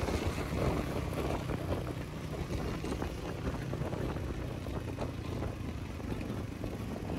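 Triumph Speed 400's single-cylinder engine running steadily on the move, under wind and road noise on the microphone.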